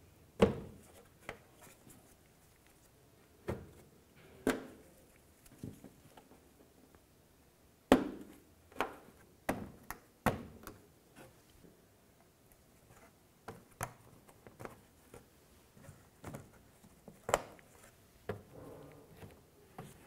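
Plastic push-pin clips being pressed into a plastic engine splash shield: an irregular series of sharp clicks and thunks, some close together and some several seconds apart.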